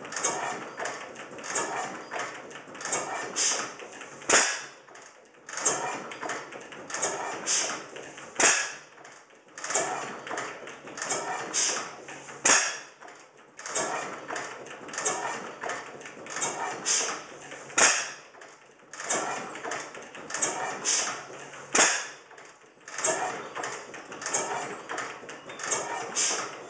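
An 1890s 6 HP Springfield overhead-cam stationary gas engine running, its valve gear and linkages clicking and clattering in repeating groups. A sharp crack comes about every four seconds.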